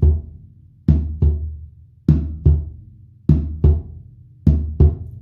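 Snare drum struck in evenly repeating pairs, a 'tum-tum' roughly every 1.2 seconds with the two strokes about a third of a second apart, imitating the normal first and second heart sounds (closure of the atrioventricular valves, then of the semilunar valves).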